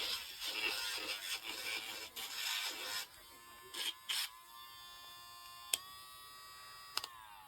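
Electric dog nail grinder's small motor whirring steadily, with a rough grinding noise over the first three seconds as the rotating sanding drum works on a dog's nail. A few sharp clicks follow, and near the end the motor's whine falls in pitch as it spins down.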